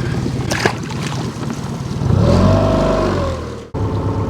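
Boat motor running steadily. About two seconds in it grows louder, rising and then falling in pitch once, and near the end the sound cuts out for an instant before the steady running resumes.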